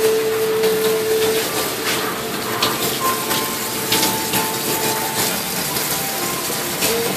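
Water jets from an automatic egg washer's spray nozzles hissing and splashing onto its brush rollers, fed by a 12-volt pump, with scattered clicks and knocks. A steady whine sounds for about a second and a half at the start.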